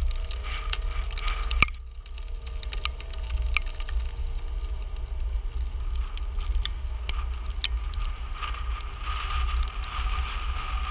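Strong tornado wind buffeting a vehicle as a low, steady rumble, with irregular sharp ticks and taps of wind-blown dust and debris striking it.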